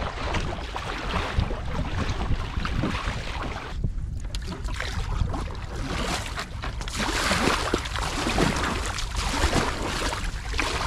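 Double-bladed kayak paddle strokes digging into seawater, splashing, with water rushing along the hull and wind buffeting the microphone.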